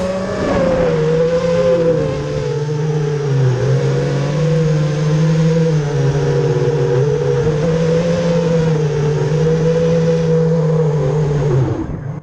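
FPV quadcopter's electric motors and propellers whining, the pitch wavering up and down with throttle over a rush of air. The whine drops away abruptly near the end.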